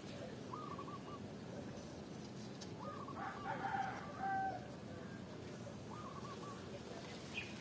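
A rooster crowing once, about three seconds in, lasting around a second and a half and ending on a held note. A short, higher call repeats three times, one near the start, one just before the crow and one near the end.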